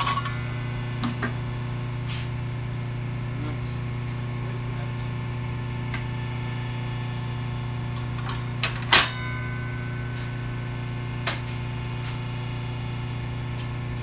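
Steady low electric hum in a woodworking shop, broken by a few sharp knocks and clicks of wood and tools being handled. The loudest knock comes about nine seconds in.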